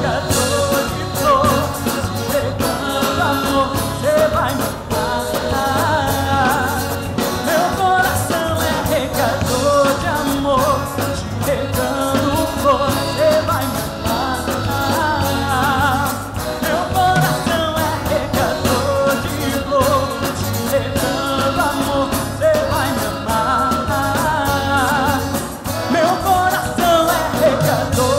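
Live band music: a male singer with a band of accordion, keyboard, electric bass and drum kit, playing continuously at full volume.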